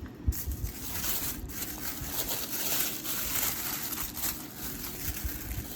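Wrapping paper rustling and crinkling as it is unwrapped by hand, with a sharp tap about a third of a second in.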